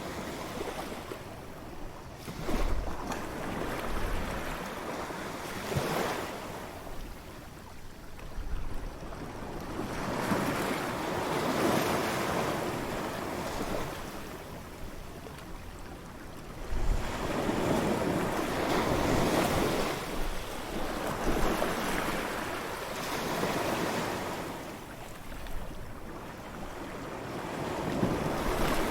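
Ocean waves breaking and washing up a beach, the surf swelling and falling away every few seconds.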